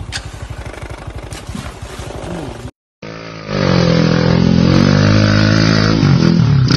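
A motorcycle engine puttering at low revs. After a sudden cut to silence about three seconds in, a motorcycle engine is revved hard and held high, its pitch wavering up and down.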